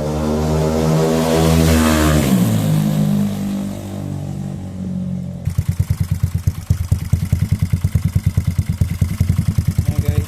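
Music for the first five seconds or so, then, after a sudden cut, a bored-up single-cylinder Yamaha Mio scooter engine idling through a JVT V4 teardrop aftermarket exhaust, with a steady, rhythmic low pulsing.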